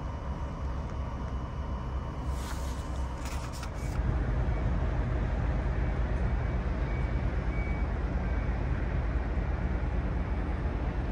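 Quiet indoor terminal room tone with a few light clicks, then from about four seconds in a louder steady outdoor rumble and hiss of a ferry port beside the docked ship.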